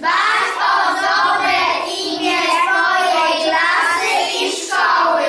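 A group of young children's voices chanting together in unison, many overlapping voices at once, with a brief pause about four seconds in, typical of first-graders reciting their pledge in chorus.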